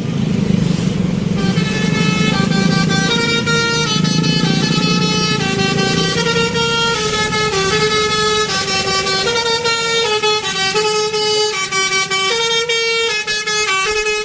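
Telolet basuri bus air horn, a multi-tone horn, playing a melody: several notes sound together and jump in pitch in quick steps. Under it there is a low rumble that fades after about five seconds.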